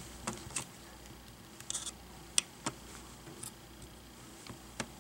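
Hobby knife prying a laptop's plastic hinge cover loose: scattered small, sharp plastic clicks and scrapes at irregular intervals.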